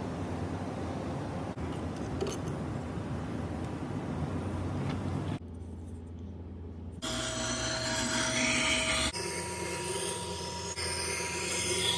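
A steady hiss with a low hum for the first few seconds, then, over the last few seconds, a slow wet-stone sharpening grinder running with the steel of a forged kitchen knife blade rubbing across its stone.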